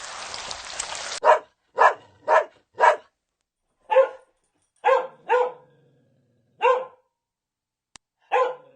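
A dog barking in short, single barks, about nine in all: four in quick succession, then the rest more spaced out. A steady hiss runs for about the first second and cuts off as the barking starts.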